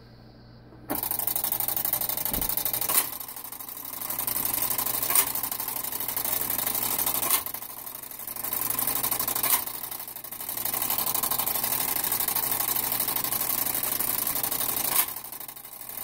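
Clockwork of a Gamewell Peerless fire alarm call box and Bliss Gamewell punch register running after the box's lever is pulled: the call box is sending its code, 424, to the register. A steady whirring with fast ticking starts about a second in, broken by sharp clicks every two seconds or so, and dips briefly between runs.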